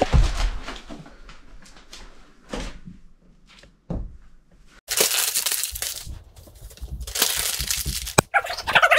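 Belongings being thrown and dumped around a small room: a thud, scattered knocks and crinkling, two rushing noises of about a second each around five and seven seconds in, and a sharp crack near the end.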